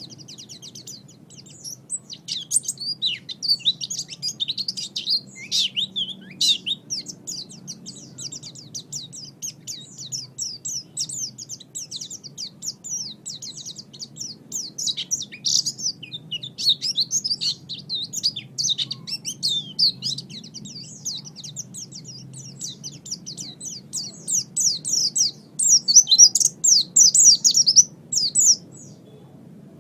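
White-eye (pleci) singing a long, rapid twittering song of short high chirps, loudest near the end and stopping just before it, over a faint steady low hum.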